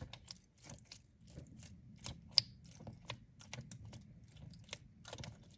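Crunchy slime being squeezed and pressed by hand, giving a quiet run of small, irregular crackling clicks.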